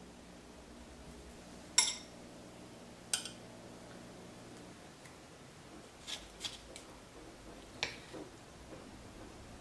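A handful of short, sharp clicks and clinks of kitchen utensils and tableware being handled. The loudest comes about two seconds in, and a quick cluster follows around six seconds.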